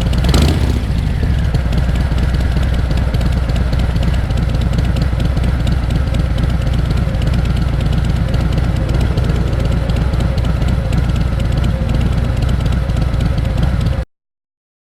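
Harley-Davidson Fat Bob's Milwaukee-Eight 114 V-twin idling steadily through its exhaust, with a brief louder burst just after the start. It cuts off suddenly near the end.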